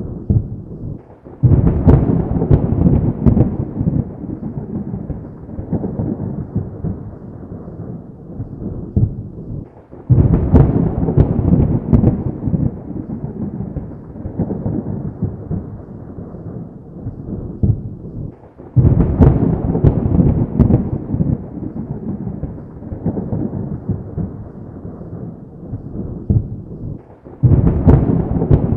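Thunder: four sudden claps about nine seconds apart. Each is a sharp crack followed by a low rolling rumble that slowly dies away before the next.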